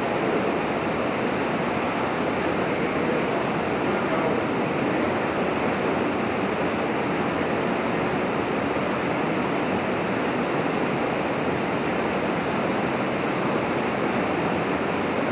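Steady rushing noise of a large laboratory fire: a burning office workstation with a heptane spray burner running under a calorimeter exhaust hood.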